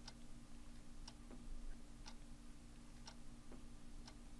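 Clock ticking faintly about once a second, over a steady low hum.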